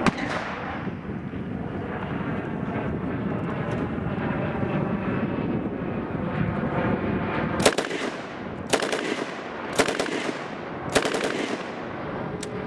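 Degtyaryov 7.62 mm light machine gun firing four separate shots about a second apart, then breaking into a rapid burst at the very end. A steady rushing noise fills the first half.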